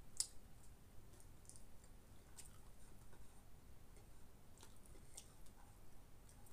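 Quiet eating from plates: a few faint, sharp clicks of a spoon and fingers against the plates, the sharpest right at the start, with soft chewing.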